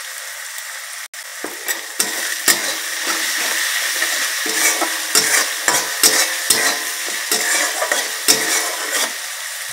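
Onions and ginger-garlic paste sizzling in hot mustard oil in an aluminium kadai, with a metal spatula stirring and scraping against the pan in many short strokes from about a second and a half in.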